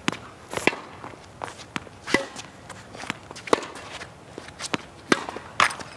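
A string of light, irregular knocks and scuffs, about two a second.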